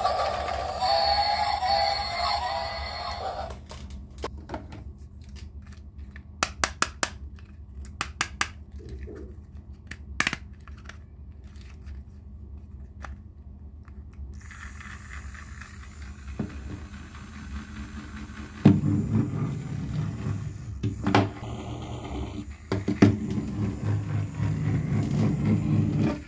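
Plastic toy train pieces being handled: a short tune for the first few seconds, then a run of sharp clicks and knocks, then a steadier low rumble with a few more knocks in the last third.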